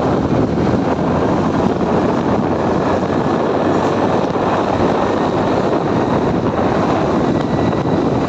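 Steady wind rush buffeting the microphone of a moving motorcycle, with the motorcycle's engine running beneath it.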